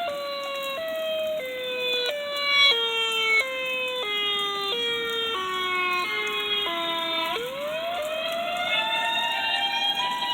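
Outdoor storm warning siren sounding, its tone stepping between a higher and a lower pitch every half second or so while sliding gradually lower. About seven seconds in it swoops back up in a long rising wail.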